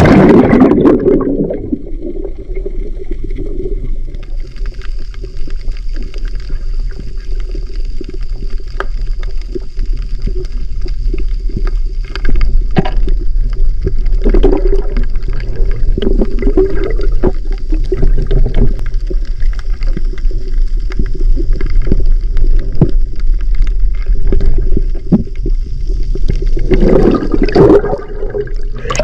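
Muffled underwater sound from a phone held in shallow seawater: a steady low rumble and gurgling with many scattered clicks and knocks, and a thin steady high tone. Louder splashing as it goes under and again near the end.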